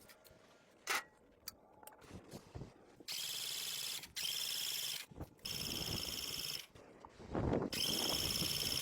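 A sharp knock, then four separate bursts of steady hissing, each about a second long, with short gaps between them.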